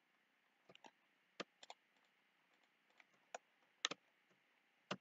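Computer mouse clicking: about ten sharp, irregular clicks, some in quick pairs, as sketch profiles are selected one after another.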